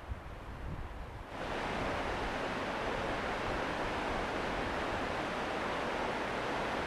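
Steady rush of white water over river rapids, starting abruptly a little over a second in. Before it, there is wind on the microphone with a low rumble.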